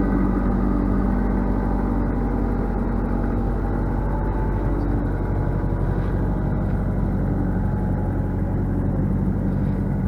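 Engine of a four-wheel-drive machine running steadily under heavy load as it works a stump of around 2,000 pounds.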